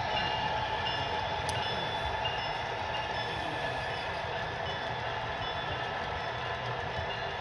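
Model freight train rolling past on the layout: a steady rumble of the cars' wheels on the track, with a few faint high tones over it.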